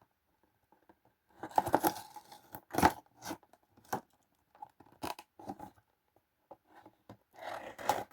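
A toy's box packaging being torn open by hand, in irregular bursts of tearing and crinkling that start about a second and a half in.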